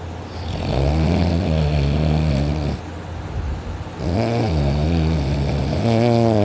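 A person snoring heavily in deep sleep, loud: two long, buzzing snores, the second starting about four seconds in, with a quieter breath between them.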